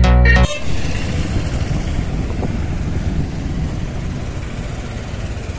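Electronic intro music cuts off about half a second in, giving way to roadside highway traffic noise: vehicles running past with a low, continuous rumble.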